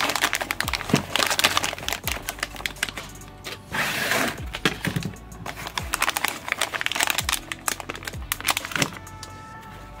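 Foil packaging bag crinkling and foam packing pieces rustling in a cardboard box as a parcel is dug out and handled, in dense irregular crackles. Background music with a steady drum beat plays underneath.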